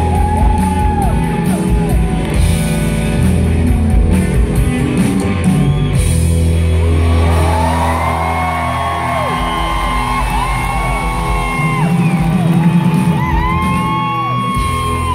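Live rock band with electric guitars, bass and drums playing loud through a large hall's sound system. The heavy bass thins out about halfway through as many voices of the audience shout and cheer over the band near the song's end.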